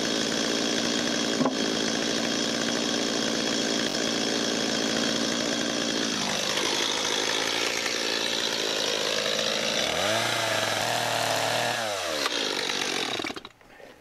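Gasoline chainsaw engine running at a steady high speed. Its pitch drops and wavers for a couple of seconds near the end, and the engine cuts off suddenly about a second before the end.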